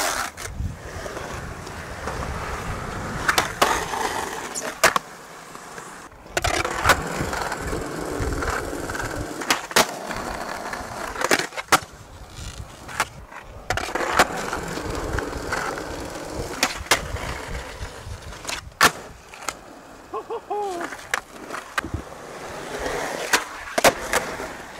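Skateboard wheels rolling on concrete, broken again and again by sharp clacks and smacks of the board popping, landing and hitting rails and coping.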